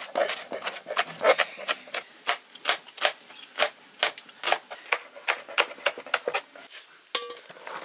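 Kitchen knife chopping red onions on a plastic cutting board: a steady run of sharp knocks, about three a second.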